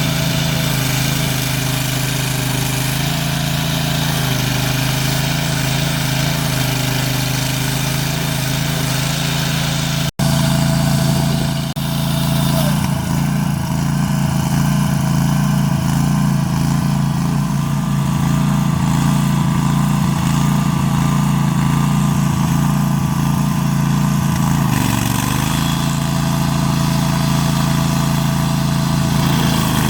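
Stump grinder's engine running steadily. After a brief break about ten seconds in, its note wavers and sags now and then as it grinds out a stump.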